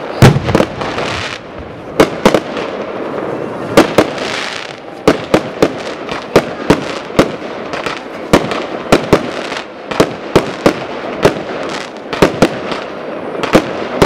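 Aerial fireworks display: shells bursting overhead in a rapid series of sharp bangs, about two a second, with a hiss between them.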